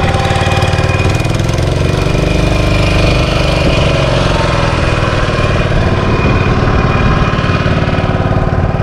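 Inboard engine of a wooden lake boat, just started and running steadily with a fast, even chugging as the boat gets under way.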